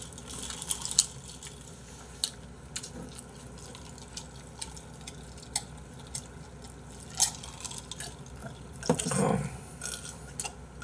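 Sipping and swallowing cola from glasses at a table: scattered light clicks and taps of glass and mouth, with a short breathy swell about nine seconds in.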